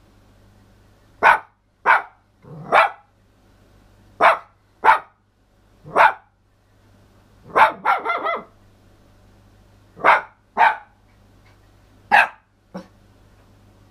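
Toy poodle barking: about a dozen short barks spaced irregularly, several in pairs about half a second apart, with a quick flurry of barks near the middle.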